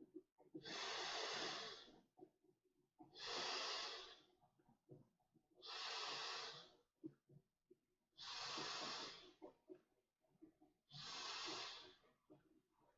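Inflatable raft being blown up by mouth: five long hissing breaths blown into the valve, each about a second long and roughly two and a half seconds apart, with short pauses between.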